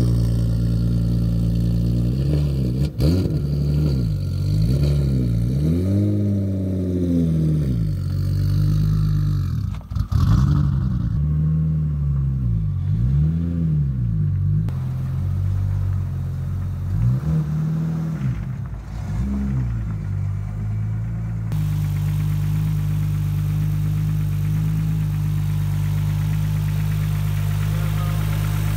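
Nissan Skyline R33's turbocharged straight-six engine, revved in a series of short blips that rise and fall in pitch, then settling into a steady idle about three-quarters of the way through.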